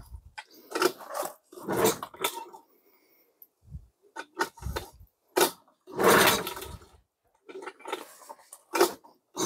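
1999 Tohatsu 3.5 hp outboard being pull-started by its recoil starter cord: about six sharp pulls a second or so apart, each a brief whirr of the engine turning over that dies away without the engine catching.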